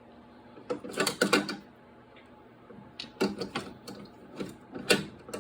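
Sharp clicks and clatters of hard plastic and metal from handling a cordless impact wrench and its sockets, coming in a few short groups about a second, three seconds and five seconds in.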